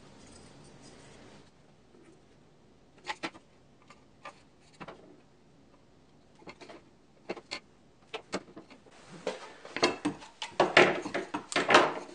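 Plastic spring clamps being squeezed open and clipped onto a freshly glued wooden holder: scattered sharp clicks and light knocks of plastic on wood, growing busier and louder in the last few seconds.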